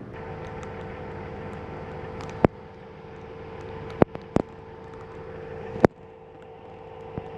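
A vehicle running with a steady hum and a held whine. Four sharp knocks break in, two to four seconds in and again near the end.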